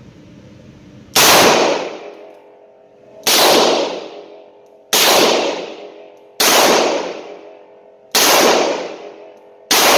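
Six slow-fire shots from a Rock Island AL9.0 9mm double-action revolver, each a sharp crack about one and a half to two seconds apart, ringing off the concrete-block walls of an indoor range.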